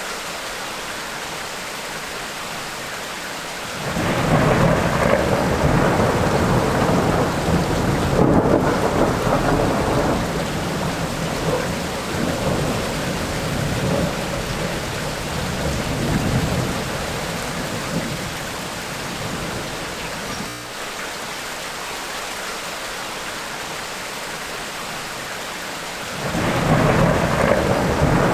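Steady rain with rolling thunder: a long rumble sets in about four seconds in and slowly dies away over the next fifteen seconds, and another peal breaks in near the end.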